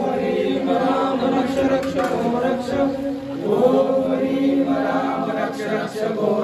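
A group of voices chanting a Hindu mantra together, in long held notes with hardly a pause.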